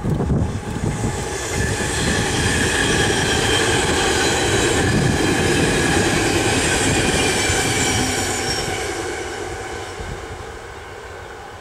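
NS VIRM double-deck electric multiple unit passing at speed: a loud rushing rumble of wheels on rail with a steady high whine above it. It builds quickly, holds for several seconds, then fades away over the last few seconds as the train recedes.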